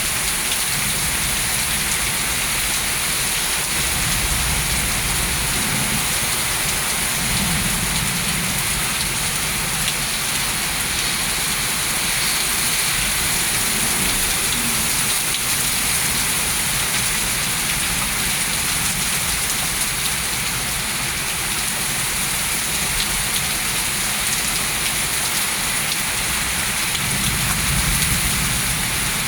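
Heavy rain pouring steadily in a thunderstorm, an even hiss, with a low rumble swelling up a few seconds in and again near the end.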